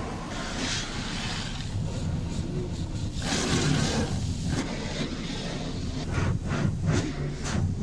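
Road noise from a car on the move: a steady low rumble with two swells of rushing noise, like wind or a passing vehicle. Near the end a run of short sharp ticks, about three a second, begins.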